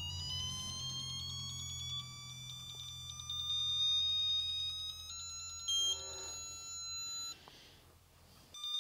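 Icon digital torque wrench's electronic buzzer sounding as the wrench is loaded toward its 50 ft-lb preset: a high beep that climbs in pitch as torque builds, then holds a steady tone at target before cutting off about a second before the end. A low hum sits underneath in the first few seconds.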